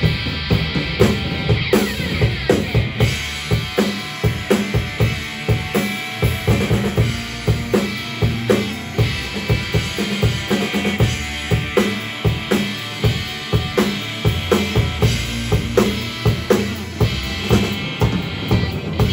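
Live rock band playing, with a busy drum kit (bass drum and snare) hitting a fast, steady run of strokes over sustained bass and higher instrument tones.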